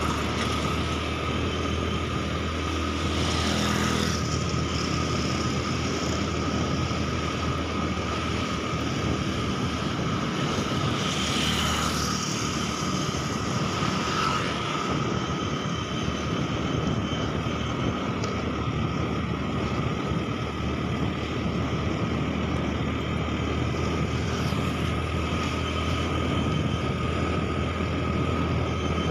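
Motorbike engine running at a steady cruising speed, with wind rushing over the microphone; a couple of times the noise swells briefly, likely as other motorbikes pass close by.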